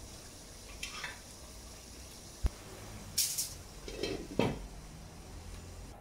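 Cookware being handled in a kitchen: a few light knocks and clatters, one sharp thump about halfway through, and a brief hiss just after it.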